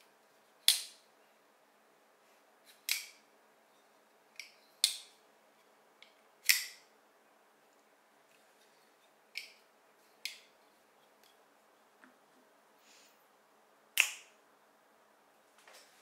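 Kansept Naska titanium-handled folding knife being flipped open and closed by hand: a series of sharp metallic clicks at irregular intervals as the blade snaps open into lock and shuts.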